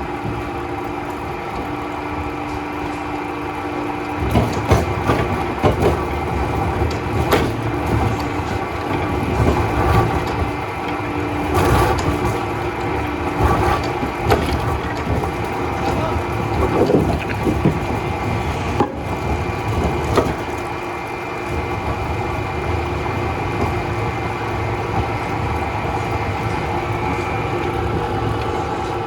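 Log-processing machinery in a veneer peeling factory running with a steady hum, broken every few seconds by sharp cracks and splintering of wood.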